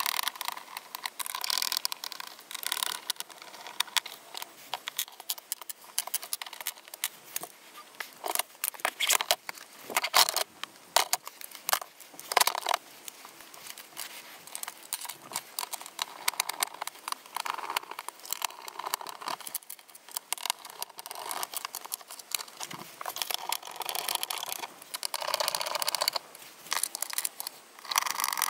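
A hand screwdriver turning screws in the plastic wheel plate of a Pelican 1650 case, with scattered clicks, scrapes and rattles of the tool and plastic parts being handled.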